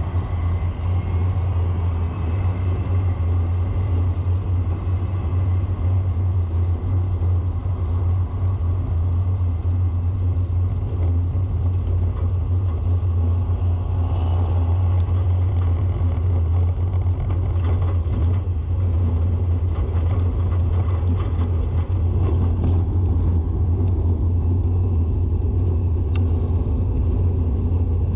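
Steady low rumble of a vehicle on the move, engine and road noise without a break.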